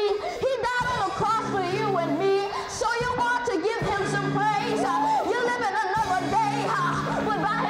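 A boy singing a gospel song into a microphone, his voice sliding up and down through long held notes. Held keyboard chords beneath change every second or two.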